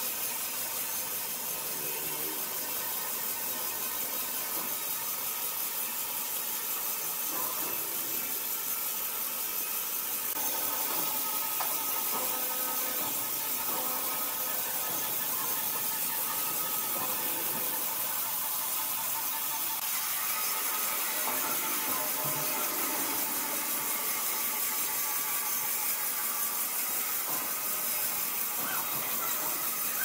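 Sawmill machinery running: a steady high hiss with faint whining tones, stepping up slightly in loudness about ten seconds in.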